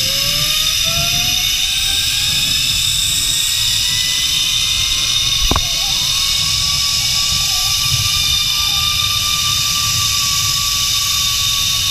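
Zipline trolley's pulley wheels running along the steel cable: a whine that climbs in pitch as the rider picks up speed, then holds steady and sinks slightly near the end. Wind rumbles on the microphone under it, and there is a single sharp click about five and a half seconds in.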